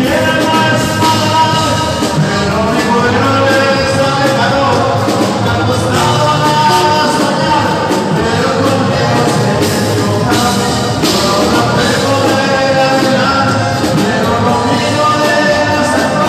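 Live band playing a song with a singer.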